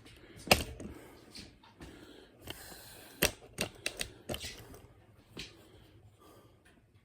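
A few sharp knocks and clicks: one loud knock about half a second in, then a quick run of them between about three and four and a half seconds in, and one more near five and a half seconds.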